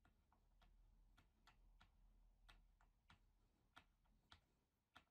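Faint, uneven clicks, about two a second, from a hex key turning in a bolt head as the bolt that holds a small ball bearing is tightened.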